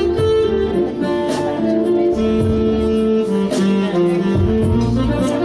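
Music led by plucked guitar, held melodic notes over a low bass line.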